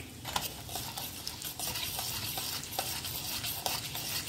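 Hot oil sizzling in a metal kadai with mustard seeds, cumin, dried red chillies and arhar dal frying in it. A steel spatula stirs and scrapes the pan with scattered light clicks.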